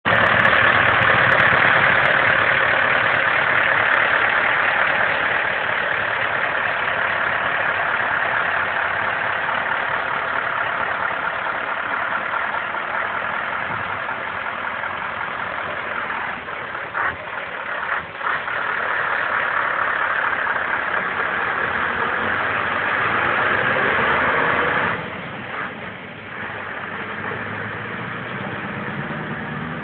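Scania T580 (164G) V8 diesel truck engine running steadily. Near the end the sound drops, then rises in pitch as the engine picks up.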